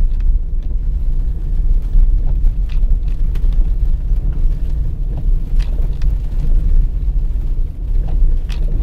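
Steady low road rumble of a car driving on snow-covered roads, heard from inside the cabin, with a few faint clicks.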